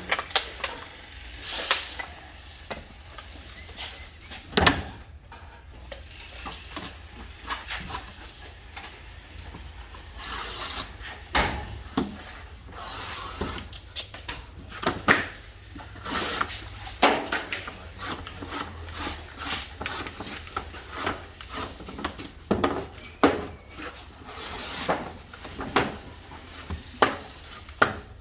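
Irregular knocks, clicks and scraping of drywall hanging work: sheets and tools being handled and set against wood framing.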